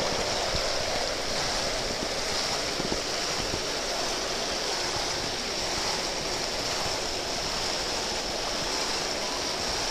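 Steady rush and splash of water from fountain jets spraying into a koi pond, with koi churning the surface.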